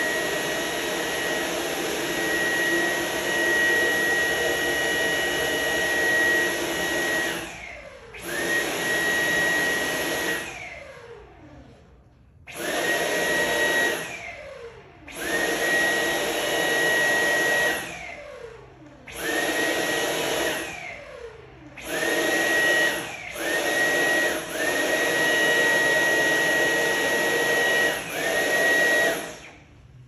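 Dyson cordless stick vacuum being switched on and off by its trigger, over and over. While on, its motor runs with a steady high whine; each time it is released, the whine falls away as the motor spins down, about six times, before it starts up again.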